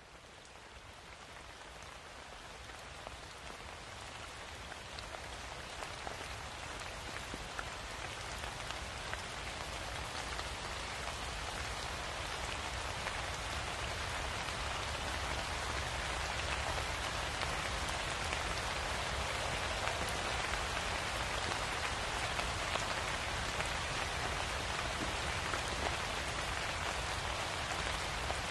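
Rain falling steadily, an even hiss with scattered drops, fading in from quiet over roughly the first dozen seconds and then holding steady.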